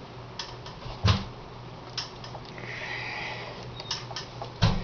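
Small clicks and knocks of a Phillips screwdriver tightening screws into a plastic RC ESC case while it is handled, with a heavier knock about a second in and another near the end, over a steady low hum.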